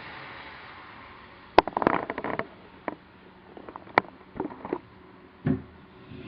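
A series of sharp clicks and knocks. There is a quick cluster about one and a half seconds in, then single clicks, and a duller thump near the end.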